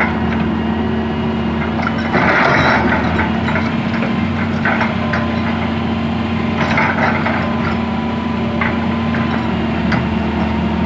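Crawler excavator's diesel engine running steadily, with a steady whine over it and a few clanks and rattles as the bucket arm moves, the loudest burst about two seconds in and another around seven seconds.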